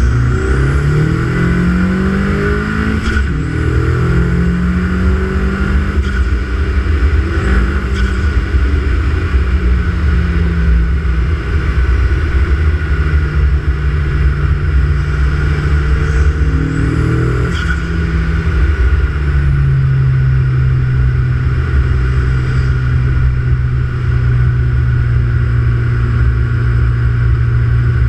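Turbocharged car engine with an open Pipercross intake and a Bailey DV30 dump valve, blipped several times so the revs rise and fall. A sharp short burst comes as the revs drop, three times, then the engine settles into a steady idle in the last third.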